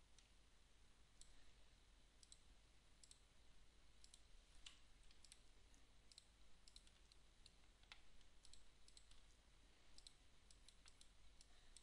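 Faint, irregular clicking of a computer mouse, single clicks and quick pairs spread through, over a steady low hum.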